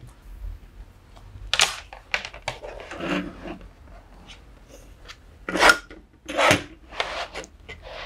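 A coil of multi-core electrical cable handled and shifted on a wooden desk: a series of separate rustles and scrapes, the loudest about a quarter of the way in and again near three-quarters of the way through.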